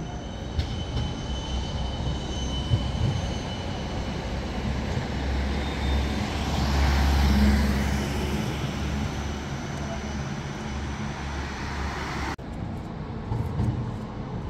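City tram passing close on street rails: low rumble and wheel-on-rail noise that build to a peak about halfway through and then fade, with a faint high whine in the first few seconds.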